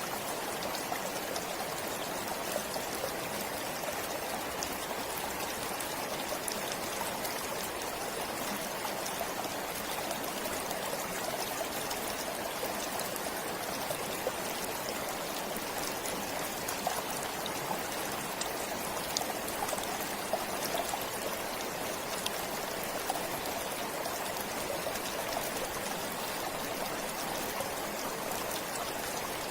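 Stream water flowing and trickling steadily, with small scattered splashes.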